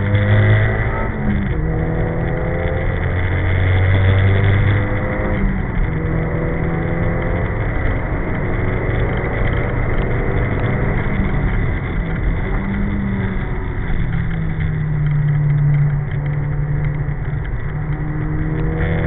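Nissan Silvia S14's four-cylinder engine under hard acceleration on track, heard from inside the car. The revs climb and drop back several times at gear changes, over steady road and wind noise.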